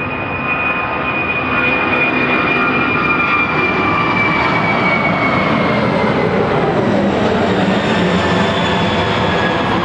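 Boeing 747's four turbofan engines at climb power as the jumbo jet passes directly overhead. The jet noise is loud and steady, with a high whine sliding slowly down in pitch and lower tones dropping steeply about two-thirds of the way through as the aircraft goes past.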